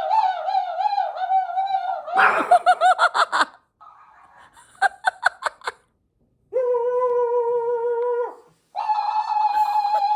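A repeat-after-me talking toy playing back speech and laughter in a high, sped-up chipmunk voice, with a burst of laughter a couple of seconds in and two long, held high tones near the end.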